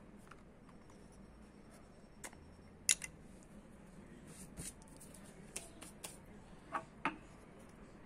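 Scattered light metallic clicks and taps of a Zippo-style lighter being handled, its freshly filled insert pushed back into the metal case, with the sharpest click about three seconds in and a couple of short ringing clinks near the end.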